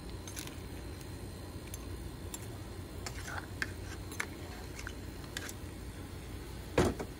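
Metal ladle tapping and clinking against an aluminium pot of boiling curry, a series of light scattered clinks, then one louder clank near the end, over a steady low rumble.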